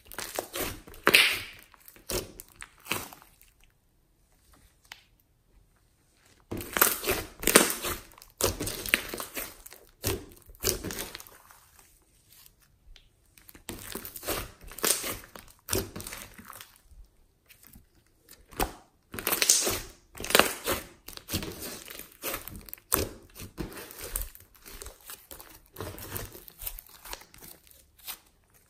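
Hands squeezing, folding and pressing a large lump of thick pink slime with small beads mixed in, making sticky handling sounds in bursts of a few seconds with short pauses between.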